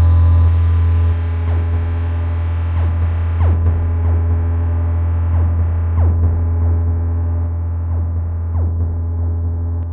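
Erica Synths Perkons Voice eurorack drum module running a self-generating patch through modulation and stereo effects. A steady low bass drone sits under irregular short hits that each drop quickly in pitch, while the treble closes down in steps as a filter sweeps.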